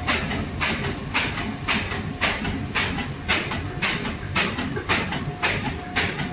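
Double-lane paper burger box making machine running at production speed: a regular clatter of short, sharp strokes about twice a second over a steady mechanical rumble.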